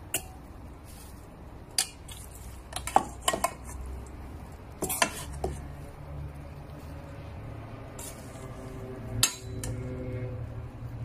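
A metal spoon clinks and scrapes against a stainless steel mixing bowl while minced-pork laab is tossed, with irregular knocks a second or two apart over a low background hum.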